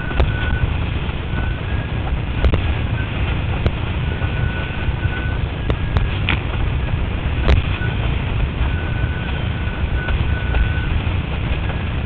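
Windsurf board planing fast over choppy water: a heavy wind-on-microphone rumble with water rushing and spraying, a few sharp slaps from the chop, and a thin high whistle that comes and goes every second or two.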